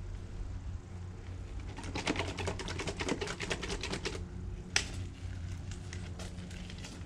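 Polishing-compound bottles handled at the detailing cart, as compound goes onto a rotary polisher's wool pad. There is a burst of rapid clicking and rattling for about two seconds, then a single sharp click, over a steady low hum.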